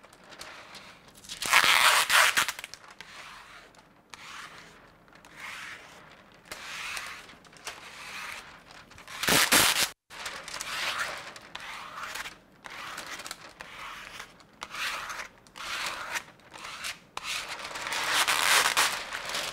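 A plastic scraper stroking across wet static-cling window film on glass while the film's plastic backing is peeled away: a series of separate rubbing, scraping swipes, two of them louder, about two seconds and nine seconds in.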